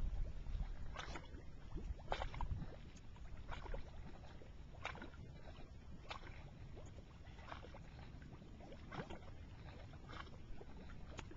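Gas bubbles rising through a Salton Sea mud pot's water-covered vent and bursting at the surface, an irregular series of wet plops and gurgles about once a second. The gas is carbon dioxide seeping up from below.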